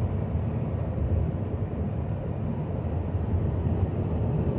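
Steady low rumble of engine and road noise from a truck cruising at highway speed, heard from inside the cab.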